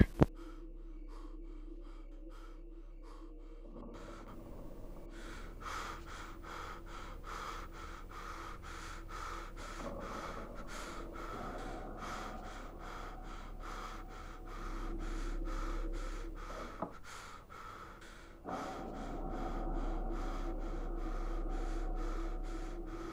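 A frightened man breathing hard: quick, heavy gasping breaths in a steady rhythm of a few a second, over a low hum.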